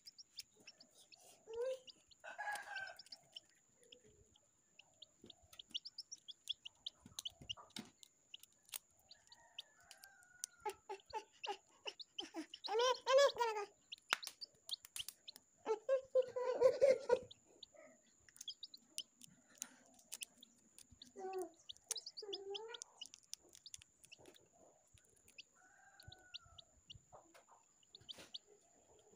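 Eggshell crackling in small clicks as fingers pick pieces off a hatching chicken egg, mixed with chicken calls: scattered short calls and two louder, longer calls about 13 and 17 seconds in.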